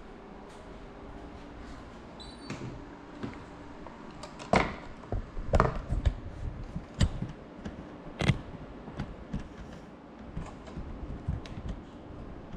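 Handling noise from the GoPro mounted on an FPV quadcopter: irregular clicks and knocks as the drone is held, moved about and set down on a table, with a brief high beep about two seconds in.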